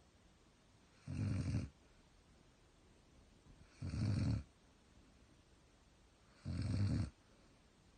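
German shepherd snoring: three snores, each about half a second long, coming regularly about two and a half seconds apart.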